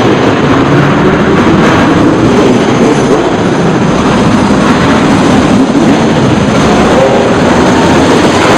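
Motorcycle engine running under way, its pitch wavering up and down, over a loud steady rushing noise.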